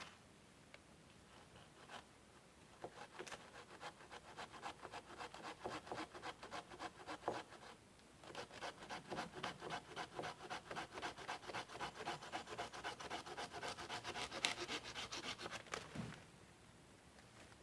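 Hand saw cutting through wood in quick, even back-and-forth strokes, in two runs with a short pause about eight seconds in.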